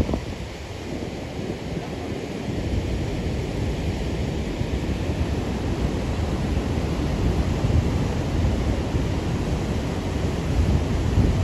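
Steady roar of the Niagara River's rushing rapids near the falls, with wind buffeting the microphone, heaviest near the end.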